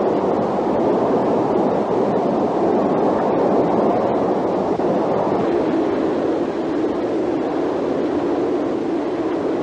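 Steam train running at speed: a steady rushing noise with no distinct chuffs.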